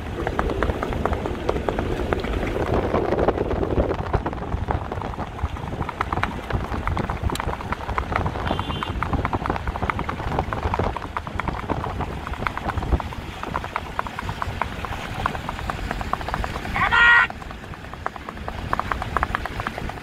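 Hoofbeats of a horse moving in rewal chal, the fast ambling gait: a quick, even clatter of hooves. About 17 seconds in, a short, loud pitched call sounds over it.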